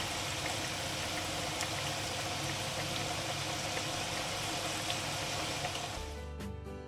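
Food frying in hot oil in a pan: a steady sizzle with scattered small pops. Plucked-guitar background music takes over near the end.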